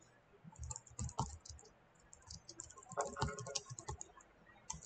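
Computer keyboard typing in quick, irregular bursts of key clicks, with a short pause a little before the middle.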